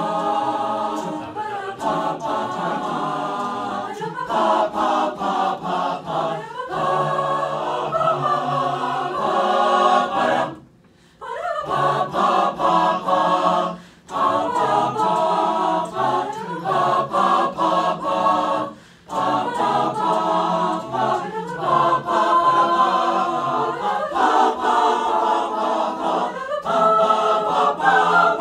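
Mixed-voice chamber choir of male and female singers singing a cappella in several parts. The voices stop together for a short rest about ten seconds in, and take two brief breaths later.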